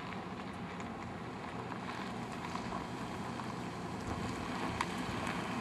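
Steady wind noise on the camera microphone, an even hiss and rumble with a few faint ticks.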